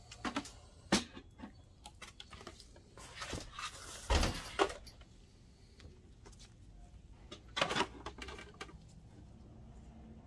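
Plastic projector cover and its cable being handled with gloved hands: scattered clicks, taps and rustles, with a louder knock and scrape about four seconds in and another cluster of taps near eight seconds.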